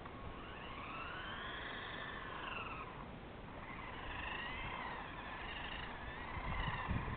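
Electric motor of a remote-controlled car whining, its pitch rising and falling as the car speeds up and slows: one long rise and fall, then a quicker wavering up and down. A few low rumbles come near the end.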